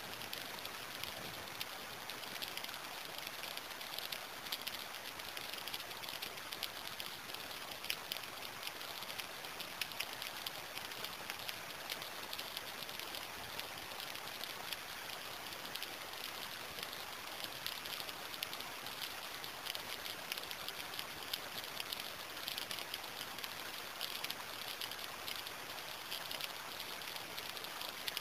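Steady rain falling, a dense patter of drops hitting a surface at an even level throughout.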